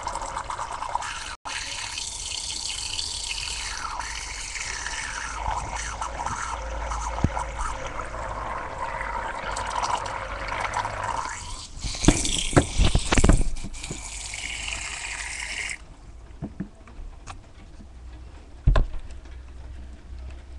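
Water swirling in a lit tornado-vortex toy: a steady rushing, splashing hiss that cuts off suddenly about three-quarters of the way in. A few loud knocks come a few seconds before it stops, and one more near the end.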